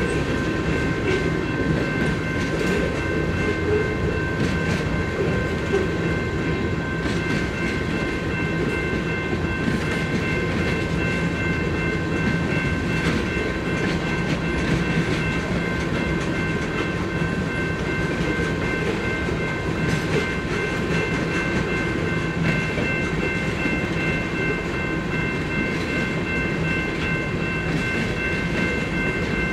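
Long freight train of tank cars rolling steadily past, its wheels clicking and clacking over the rail joints and the crossing. Above the rumble runs a steady high-pitched ringing of several held tones.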